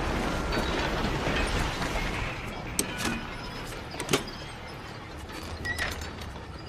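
Construction-site din: heavy machinery rumbling steadily, a reversing beeper sounding briefly near the start, and several sharp clanks and knocks through the middle.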